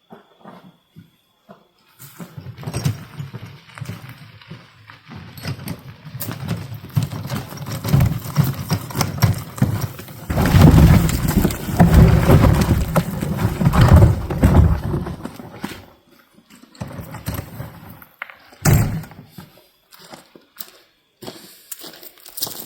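A wheelbarrow loaded with cut firewood rumbling and rattling over rough ground, then the logs clattering out onto a woodpile, loudest and densest from about ten to fifteen seconds in. A few single knocks of wood follow, one of them sharp.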